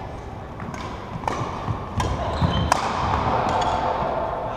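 Badminton rackets striking a shuttlecock in a fast doubles rally: four sharp hits spaced a little over half a second apart, echoing in a large hall, with the thuds of players' feet on the wooden court.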